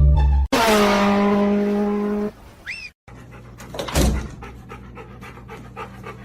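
A loud ringing tone lasting about two seconds, followed by a short rising-and-falling chirp. Then a dog panting, with a thump about a second into it.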